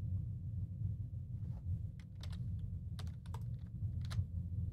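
About eight irregular, sharp clicks of computer keys being pressed, over a steady low hum.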